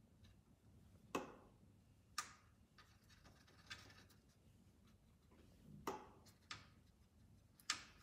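A paintbrush tapping and clicking against a watercolour palette's wells and the paper, about six sharp small clicks spread through, the loudest near the end, with a short soft swish of the brush being worked in paint near the middle. Otherwise near silence.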